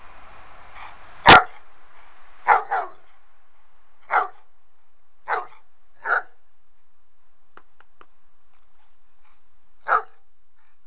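Newfoundland dog giving a series of short, single play barks while romping with a person: about seven in all, the first and loudest about a second in, two in quick succession soon after, and a last one near the end.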